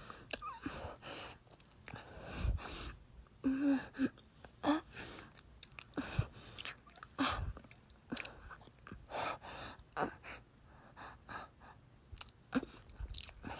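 Close-miked wet kissing: irregular lip smacks and mouth noises with breaths between them.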